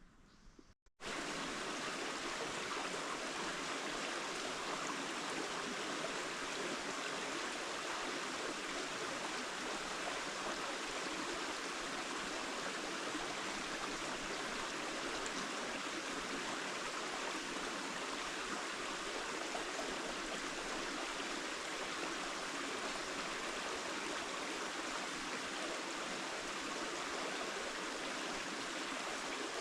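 Steady, even rush of flowing water, cutting in abruptly about a second in after a momentary silence.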